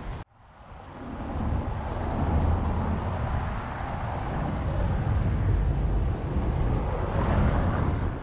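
Steady rushing noise of wind on the microphone and road noise while riding. It fades in over a couple of seconds after a brief drop-out near the start, then stays loud, with a deep rumble under a hiss.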